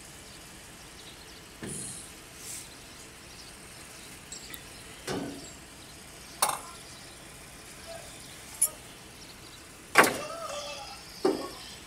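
Scattered knocks and clinks of hand tools and metal filter canisters being handled while the filters are changed on a Caterpillar generator's diesel engine, the loudest knock about ten seconds in.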